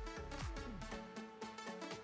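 Electronic dance music outro: synth tones over a kick drum beating about twice a second, the kick dropping out about halfway through.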